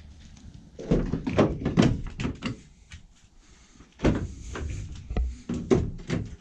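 Knocks and clunks of a van's doors being handled, in two bursts of several sharp strikes each.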